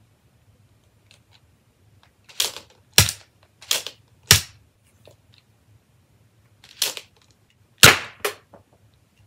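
Sharp plastic clacks of a small toy dart pistol being loaded and primed, about seven in all. Four come in the first half and three more near the end.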